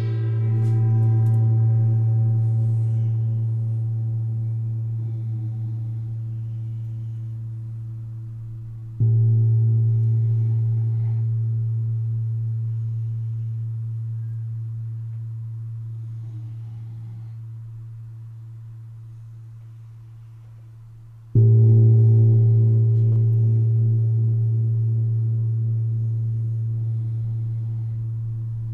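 A deep-toned relaxation instrument, a struck resonant metal gong or bowl, ringing with a low hum and several overtones. It is struck again about nine seconds in and again past the twenty-second mark, and each tone fades slowly.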